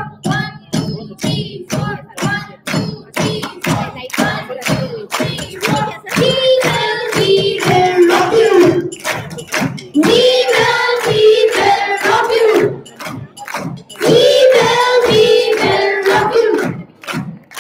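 A group of young voices singing together over a quick, steady beat of sharp percussive strikes. Over the first few seconds the beat is mostly alone, with short sung bits. Sustained sung lines come in about six seconds in and break off briefly a few times.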